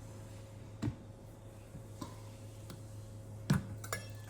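A few light knocks and clicks of a thermal cooker's pot and lid being handled, the loudest about three and a half seconds in, over a steady low hum.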